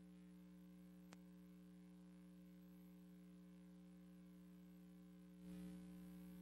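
Near silence: a steady electrical hum in the sound system, with one faint click about a second in and a slight rise in hiss near the end.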